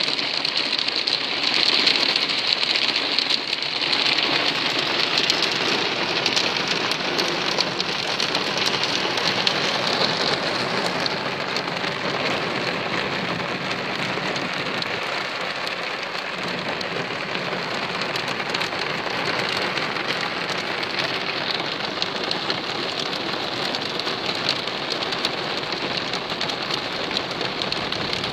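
Hail and heavy rain pelting a car's roof and windows, heard from inside the car as a dense, steady clatter of countless small impacts. It is heaviest for the first ten seconds or so, then eases slightly.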